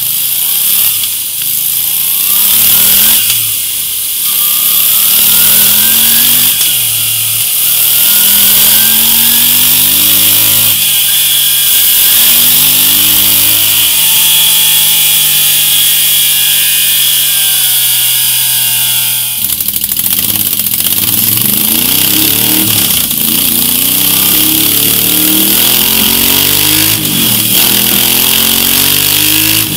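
Moto Guzzi V7 III's air-cooled V-twin revved repeatedly while standing, each blip rising and falling in pitch, through the stock exhaust and then, about two-thirds in, through a MIVV Ghibli aftermarket silencer.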